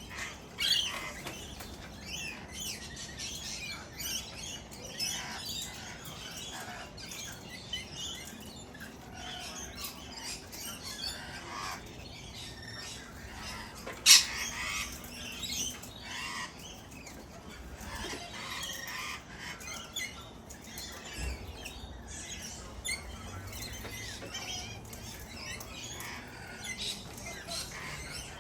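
Wild parrots calling and squawking in a busy flock, many short, sharp calls overlapping throughout, with one much louder squawk about halfway.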